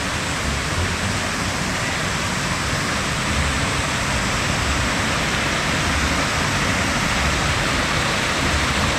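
Waterfall: falling water rushing steadily in an even, unbroken hiss.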